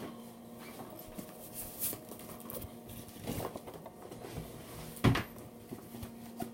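Handling sounds as a container is picked up and moved: scattered rustles and light knocks, with one sharper knock about five seconds in, over a faint steady hum.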